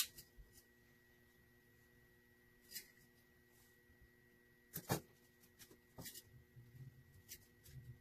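Wire strippers working the end of an electrical cord: a few scattered sharp clicks and snips, the loudest pair about five seconds in, over a faint steady hum.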